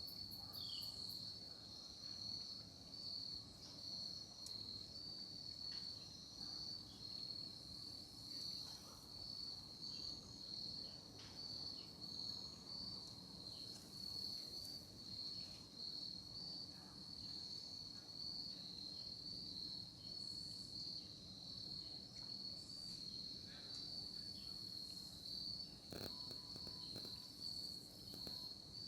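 Crickets chirping in a steady, high, unbroken trill of night insect song, with a few faint short chirps over it.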